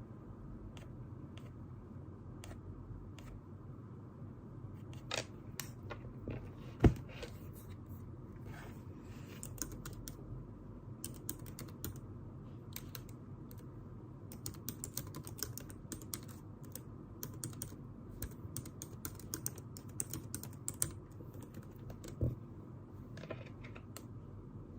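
Scattered light clicks and taps, thickest in a run through the middle, with one sharp louder knock about seven seconds in and a smaller one near the end, over a steady low hum.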